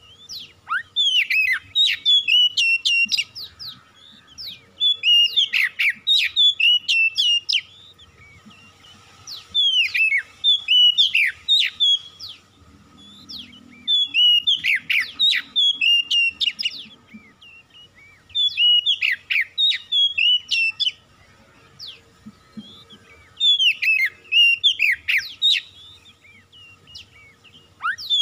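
Oriental magpie-robin singing loud, varied whistled phrases. The song comes in bouts of two to three seconds, with short pauses between them.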